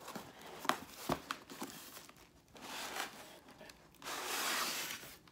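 A cardboard box being opened by hand: a few light knocks and taps, then tearing and rustling, loudest for about a second near the end.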